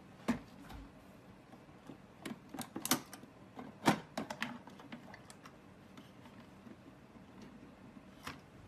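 Irregular small clicks and knocks of plastic chargers and cables being handled as a hand rummages in a drawer, with a cluster around three seconds in and the loudest knock about four seconds in.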